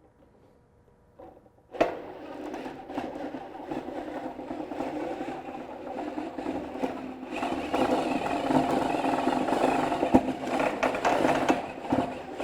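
A drill turning the Bluedog BWS-38-MF-DA wire stripping machine as 3/0 cable is fed through and its blade slits the insulation. It starts suddenly about two seconds in, then runs with a steady hum and scattered clicks, growing louder about halfway through.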